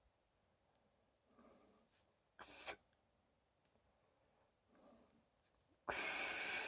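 Soft handling sounds and clicks as the top cap of a rebuildable tank atomiser is put back on and screwed down, with a short loud hiss near the end.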